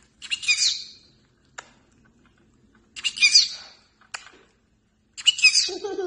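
Small green parrot giving three short, high calls about two and a half seconds apart, with a few sharp clicks between them.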